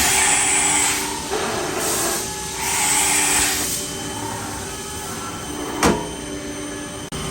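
Smart VX 350-5AX 5-axis CNC machining center running, with a steady machine whine, two spells of hissing about three seconds apart, and a sharp click just before six seconds.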